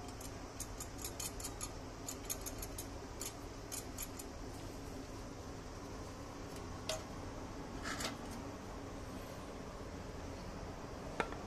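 Light clicks and rattles, several a second for the first four seconds, from a Coleman Peak 1 stove's rusty steel fuel tank being handled over a plastic funnel. There are two short scrapes later and one sharp click near the end.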